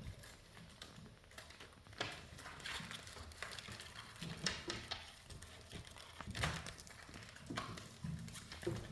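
Scattered light taps and thumps, a few seconds apart, of a ragdoll cat pouncing and batting at a Cat Dancer wire toy.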